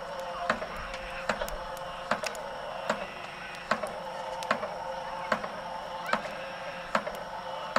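A steady beat of sharp struck percussion, one strike about every 0.8 s with lighter clicks between, over a continuous background din.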